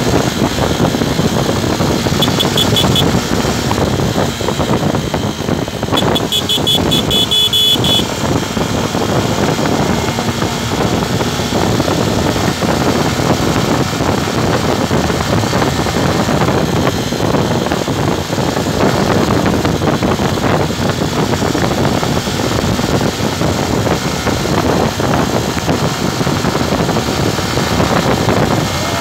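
Motorcycle riding in traffic: steady engine and road noise with wind rushing over the microphone. A brief, rapid high-pitched chirping comes about two seconds in and again for a couple of seconds about six seconds in.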